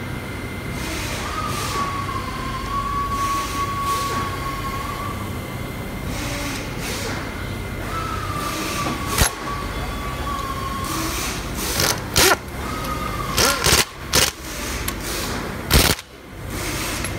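Steady workshop machinery rumble, with a machine whine that comes and goes three times, each time sliding slightly down in pitch as it starts. Several sharp knocks come about nine seconds in and in a cluster near the end, the loudest just before the end.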